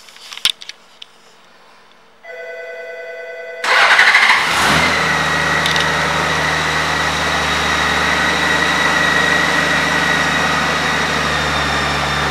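Honda Gold Wing F6B's flat-six engine being started: a few small clicks, then the starter whirs for about a second and a half. The engine catches about four seconds in with a brief rise and settles into a steady idle.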